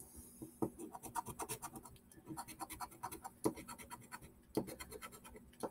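Scratch-off lottery ticket being scratched: quick bursts of short scraping strokes, several a second, with brief pauses between bursts.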